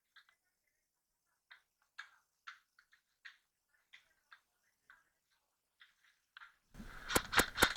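Airsoft gunfire: faint, scattered sharp clicks about two a second, then near the end a louder burst of noise with three sharp cracks in quick succession.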